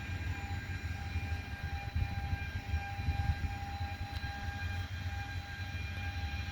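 Harvest machinery running steadily, a low engine rumble with a steady high whine over it.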